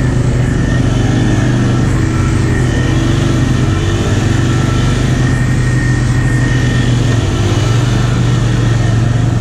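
ATV engine held at high, steady revs while its tires spin in deep mud, throwing mud: the quad is stuck in a mud hole and trying to pull out.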